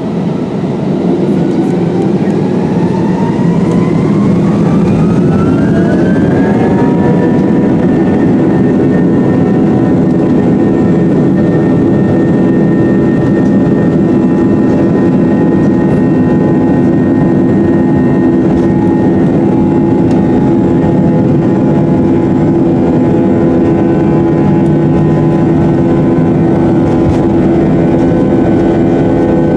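Jet airliner engines spooling up, heard from inside the cabin: a rising whine that climbs and levels off about seven seconds in, then runs steadily at high power.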